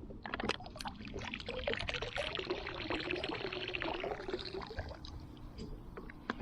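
River water gurgling and trickling out of a beer can as it is tipped and emptied, with small clinks and taps of the can being handled. The pouring stops about five seconds in, leaving a few light taps.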